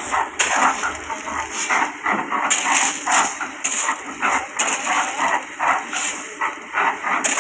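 Construction work by hand: irregular scraping and knocking strokes, roughly two or three a second.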